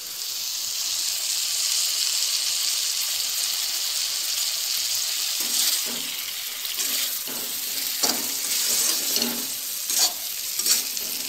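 Lemon juice poured into a hot kadhai of frying stuffed baby eggplants (bharwa baingan), sizzling as it hits the pan. From about halfway, a spatula stirs and scrapes against the pan in several strokes, roughly one a second, over the continuing sizzle.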